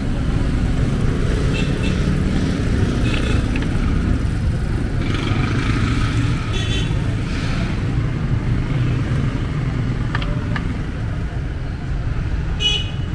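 Steady street-traffic rumble from passing cars and motorcycles, with a brief horn toot near the end.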